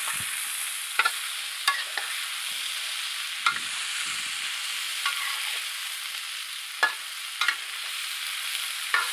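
Tempeh in sweet soy sauce sizzling in a wok while a metal spatula stirs it. The steady sizzle is broken by sharp scrapes and clinks of the spatula on the pan at irregular intervals.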